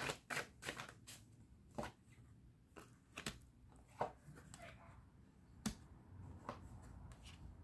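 Tarot cards being shuffled by hand: a string of light, sharp card slaps, several in quick succession in the first second, then single ones about every second.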